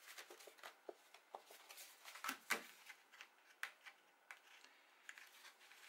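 Faint rustling and scattered light crackles of a folded pop-up paper card being closed and pressed flat by hand, with a few slightly louder crackles near the middle.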